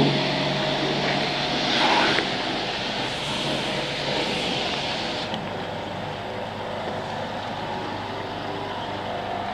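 Steady engine drone under outdoor background hiss. The higher hiss drops away about five seconds in.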